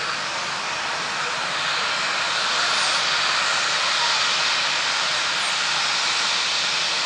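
Twin-engine widebody jet airliner taking off at take-off thrust: a steady, loud rush of jet engine noise that swells slightly about two seconds in as the aircraft lifts off and climbs away.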